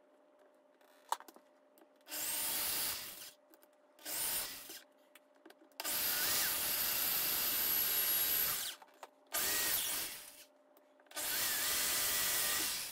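Corded electric drill driving screws to fix a baby gate's mounting bracket to a wooden door frame, run in five short bursts. The motor whines up in pitch as each burst starts, and the longest run is about three seconds in the middle.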